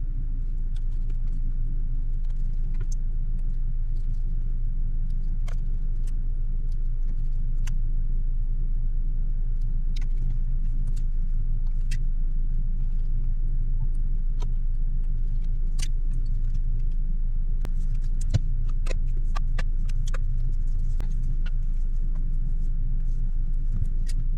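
Steady low hum of a vehicle's idling engine, heard from inside the vehicle. Over it come scattered small clicks and taps of hand tools and phone parts during an iPhone screen replacement, busiest a little past the middle.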